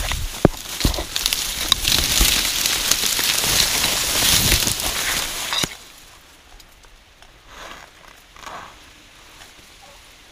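Dense vegetation crackling and rustling right against the microphone as someone pushes through it, full of sharp snaps; it cuts off abruptly a little past halfway, leaving only faint rustles.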